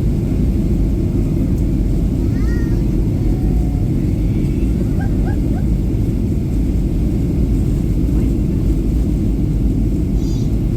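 Steady deep cabin rumble inside a Boeing 737-800 in descent: engine and airflow noise. A few faint, short squeaky sounds ride over it about two and five seconds in.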